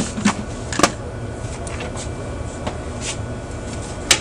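A few sharp clicks and knocks of things being handled and set down on a workbench, one near the start, one about a second in and one near the end, over a steady low hum.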